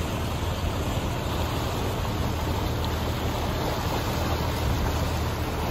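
Boat engine droning steadily while under way, with a constant rush of water past the hull.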